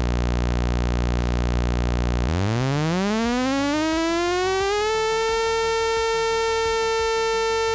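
Buzzy synthetic pulse tone from a frequency generator: a low steady buzz that, a little over two seconds in, glides smoothly upward and settles on a steady 450 Hz tone, the firing frequency of the Honda CBX1050's six cylinders at 9,000 RPM.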